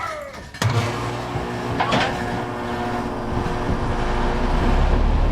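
A sharp knock about half a second in, then a pickup truck's engine running, growing louder and heavier from about four seconds in as the truck is moved onto a tow dolly.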